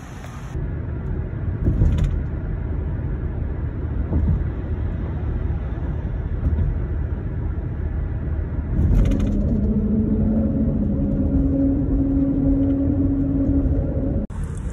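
Road and engine rumble heard from inside a moving car. About nine seconds in, a steady droning hum joins the rumble.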